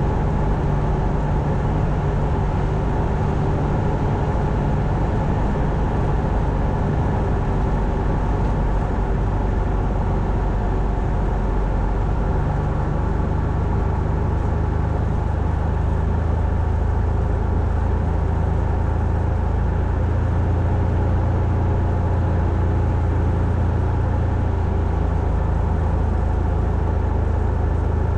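Cessna 172's piston engine and propeller running with a steady drone; its low tone shifts slightly about halfway through.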